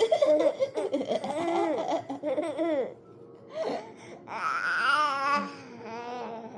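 A four-month-old baby laughing as he is tickled: a run of short laughs, a brief pause about three seconds in, then a higher, wavering squeal of laughter.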